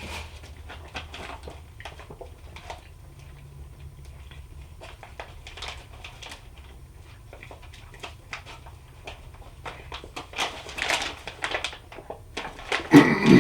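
A person eating a dense fruit bar, with wet mouth clicks and smacks. From about ten seconds in come louder, rougher throat sounds, then a hard cough near the end as a piece of the bar catches at the back of the throat.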